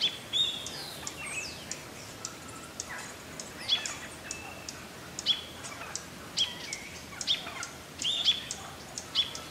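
A flock of wild turkeys calling: short, high chirping notes at irregular intervals, some dropping in pitch, with scattered sharp ticks.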